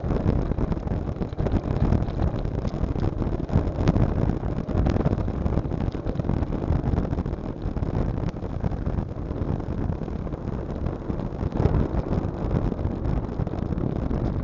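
Steady low rumble of wind and motion buffeting the built-in microphone of a Proscan HD 720P action camera as it travels along a paved road, with a few faint clicks scattered through it.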